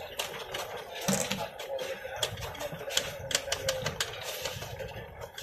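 Kitchen knife chopping fresh coriander on a chopping board: a quick, irregular run of sharp blade strikes against the board, several a second.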